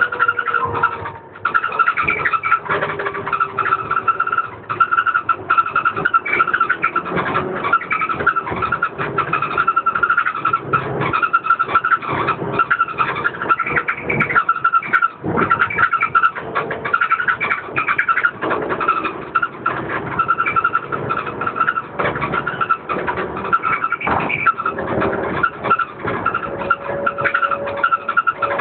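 Cabin noise inside a DAF DB250LF double-decker bus on the move: the diesel drivetrain drones steadily under constant rattling of panels and fittings. A whine falls in pitch over the first few seconds.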